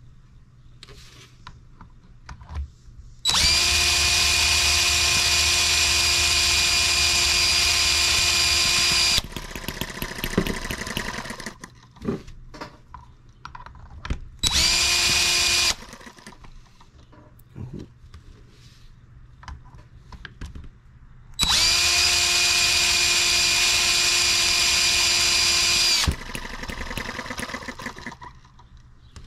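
A cordless drill spins the flywheel of an M18 model engine to crank it over, in three runs of a steady high whine: about six seconds, then a short burst of about a second, then about five seconds. The engine is not catching and only fires now and then. Between the runs there are quieter clicks and handling sounds.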